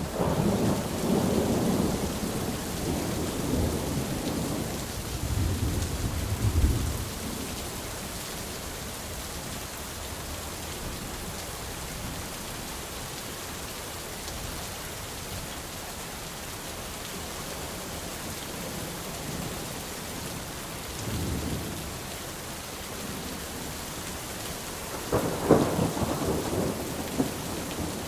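Steady rain in a forest, with thunder rumbling through the first seven seconds, a brief low rumble about twenty-one seconds in, and a louder peal near the end.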